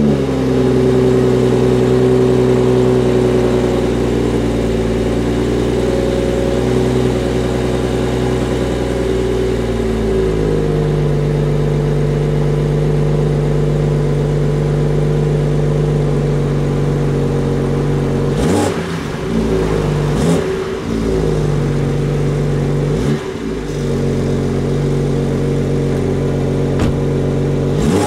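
Exhaust of a G30 BMW 540i's turbocharged 3.0-litre inline-six, running at its fast idle just after a cold start. The idle note shifts about ten seconds in. In the second half come a few short, quick revs.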